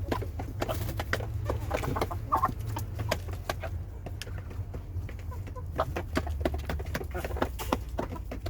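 Lohmann hens clucking, with a flurry of short sharp taps and clicks throughout over a steady low rumble.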